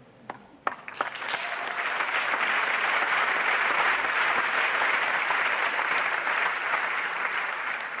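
Audience applause: a few scattered claps, then within about a second and a half the applause builds into steady clapping from the whole crowd.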